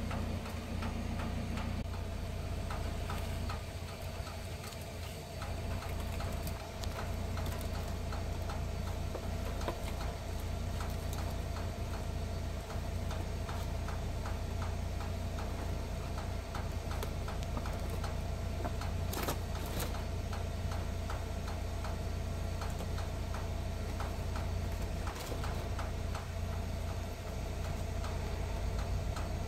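Steady low mechanical hum with a regular ticking over it, from a running machine. A brief burst of noise about two-thirds of the way through.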